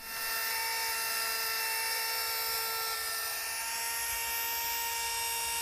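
Dremel rotary tool grinding the crown off a conch shell: it starts up and holds a steady high whine over a gritty hiss.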